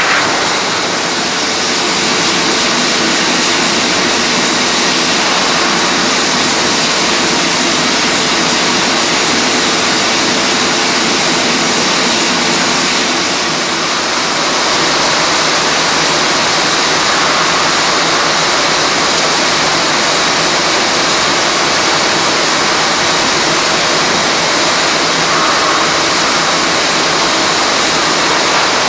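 Jar filling and packing line running: a loud, steady rushing hiss of factory machinery and conveyors, with a faint hum under it in the first half.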